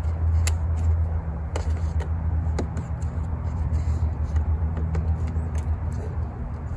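Plastic push clips on a car's cowl cover being pried out, a few short sharp clicks spread through, over a steady low hum.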